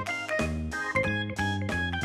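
Background instrumental music: a bright melody of short notes over a bass line, about three or four notes a second.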